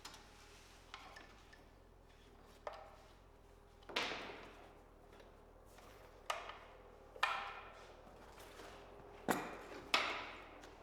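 Scattered metal clanks and knocks from hand tools working on car chassis parts, about eight separate strikes, each with a short ring. The loudest come a few seconds in and twice near the end.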